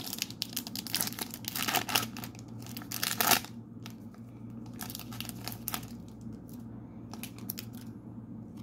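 A foil Panini trading-card pack being torn open: dense tearing and crinkling for about the first three seconds, ending in the loudest rip. Lighter, scattered crinkles follow as the cards are slid out of the wrapper.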